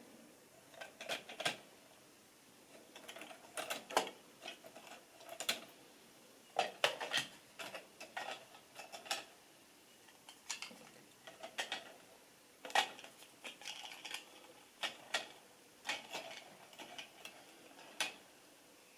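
Model railway coaches running on track: irregular light metallic clicks and clacks from wheels and couplings, often in small clusters.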